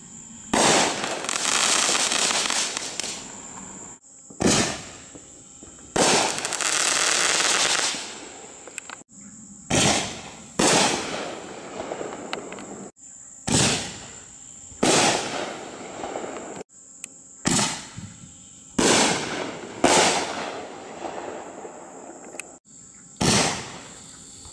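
Reloadable aerial shells from a Shogun Guns and Bombs mortar kit going off: about a dozen sharp bangs from launches and shell bursts, spaced irregularly one to four seconds apart. Some bangs trail off in two or three seconds of dense hissing.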